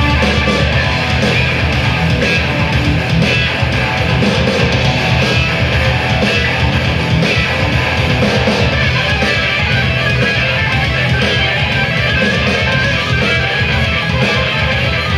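Electric guitar played live through a Marshall amplifier and effects pedals, loud and continuous.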